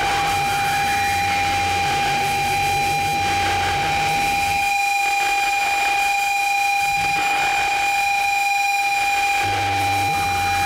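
Live electronic noise music built on feedback: a steady high feedback tone held over a hissing haze, with a low drone underneath that drops out about halfway through and comes back near the end.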